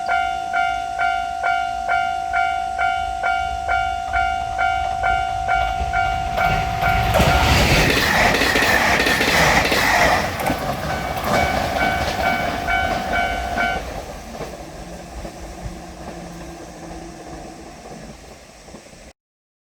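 Japanese level-crossing alarm ringing its repeated electronic ding, nearly three a second, while a JR Shikoku 2700 series limited-express diesel railcar train passes. The train's rush is loudest a little before halfway. The bell stops about two-thirds of the way in, and the train's sound fades away before the audio cuts off near the end.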